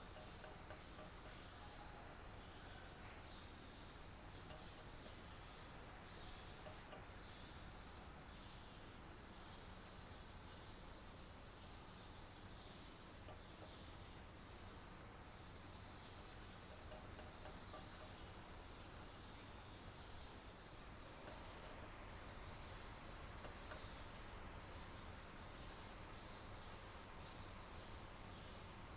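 Crickets trilling without a break in one steady high-pitched band, faint, over a low even hiss.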